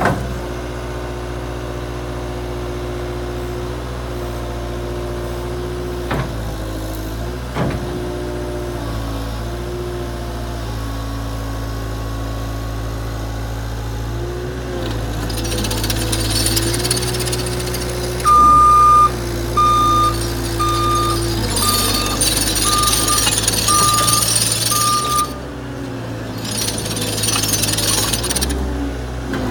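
Caterpillar 277C multi-terrain loader's diesel engine running, its pitch shifting as the revs change, with a couple of sharp clicks early on. Past the middle a hissing rush comes in, and a single-tone reverse alarm beeps about once a second for several seconds.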